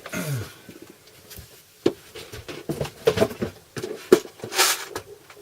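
Tools and small objects being handled on a workbench: a series of sharp clicks and knocks with a brief rustle about four and a half seconds in.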